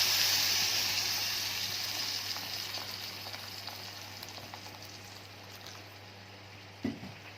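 Boiling water from a kettle poured onto rice fried in oil in a hot pot: a loud sizzling hiss that fades gradually as the pot settles. A short knock near the end.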